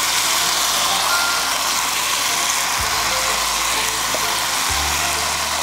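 Thin-sliced beef brisket and onion sizzling steadily in a hot frying pan as a bowl of bean sprouts is tipped in. Background music with a slow bass line runs underneath.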